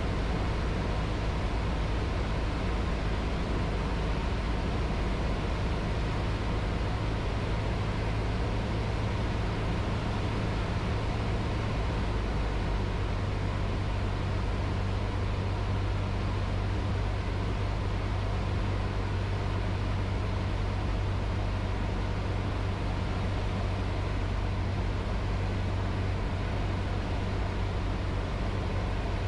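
Cessna 152's four-cylinder Lycoming engine and propeller running steadily in cruise flight, heard from inside the cockpit as an even low drone.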